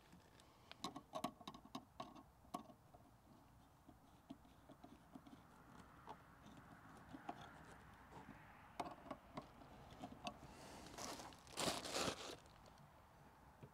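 Faint scattered clicks and scraping of a screwdriver and metal fittings while a wing mirror is screwed onto a car door, with a louder, longer scrape about eleven seconds in.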